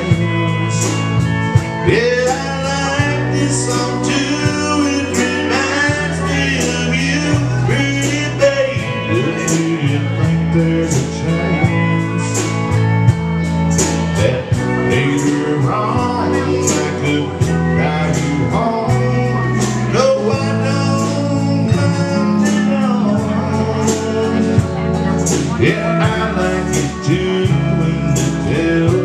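Live country band playing a song: electric guitar over held bass notes and a steady drum beat.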